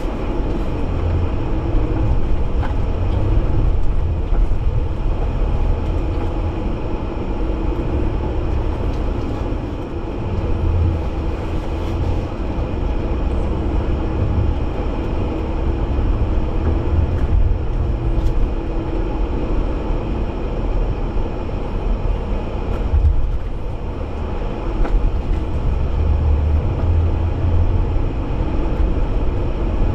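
Jeep driving off-road: a steady low rumble of engine and tyres that rises and falls slightly without a break.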